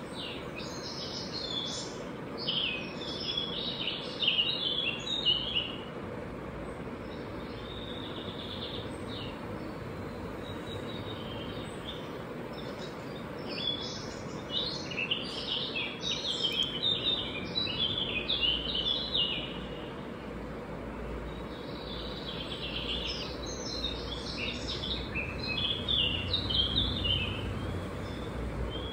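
A songbird sings three long phrases of quick, jumbled chirping notes, about ten seconds apart, over a steady background hum.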